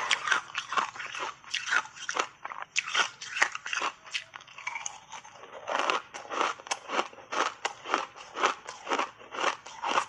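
Close-up crunching and chewing of ice chunks coated in matcha powder, a fast run of sharp crunches, about three or four a second, with a brief lull about four seconds in.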